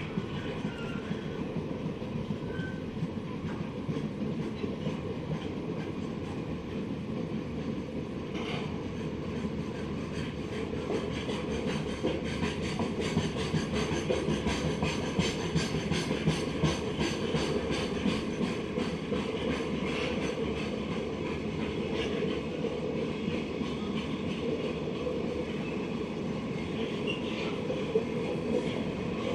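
Freight train rolling past, wheels clacking over rail joints in a steady rhythm that is densest through the middle of the pass, over a continuous rumble.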